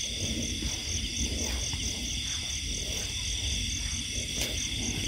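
Night chorus of insects: a steady high trilling and a regularly pulsing trill go on without a break, over a low, uneven rumble.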